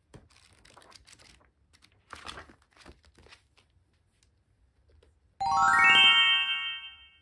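Plastic film wrapper on a notebook crinkling and tearing in small bursts as it is unwrapped. About five and a half seconds in, a loud single bright ringing tone sounds, rising slightly at the onset and fading out over about a second and a half.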